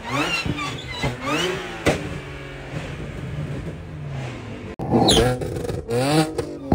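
Tuned Audi's engine revved hard in repeated rising sweeps, settling briefly in the middle; about five seconds in it turns louder, with sharp cracks among the revs as the exhaust backfires and spits sparks.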